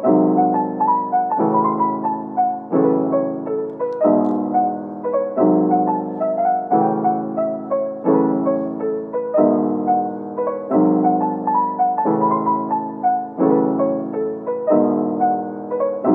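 Soft background piano music: chords struck on a steady beat, a new one about every second and a half, with a light melody above.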